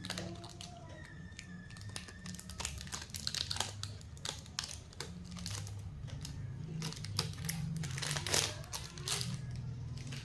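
Plastic lollipop wrapping crinkling and crackling as it is handled, in irregular bursts that are thickest in the middle, over a steady low hum.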